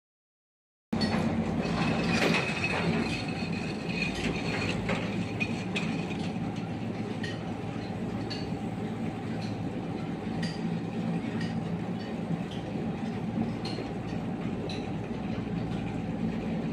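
Cable-car ropeway terminal machinery running: the bull wheels and cable sheaves turn with a steady mechanical hum and a light tick about once a second. The sound starts suddenly about a second in.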